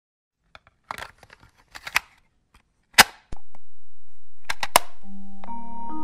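A cassette rattling into a Panasonic portable radio-cassette player's tape deck, the cassette door snapping shut with one sharp click about three seconds in, then the play key clunking down in a few quick clicks. About five seconds in, held musical notes start playing from the tape.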